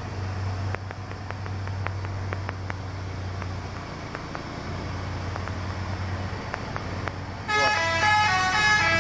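A truck engine idles with a steady low hum. About seven and a half seconds in, a loud multi-note musical horn sounds, playing a tune whose notes step up and down in pitch, the modified horn of a Fuso dump truck.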